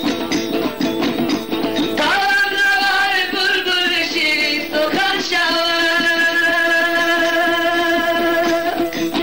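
Afghan folk song: a male singer holds two long wavering notes over plucked-string accompaniment. The plucked strings carry on alone at the start and again near the end.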